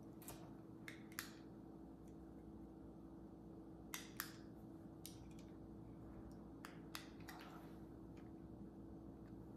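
Near-silent room tone with a steady low hum, broken by about ten light, scattered clicks and taps of small objects being handled at a desk. The loudest clicks come about a second in and as a pair about four seconds in.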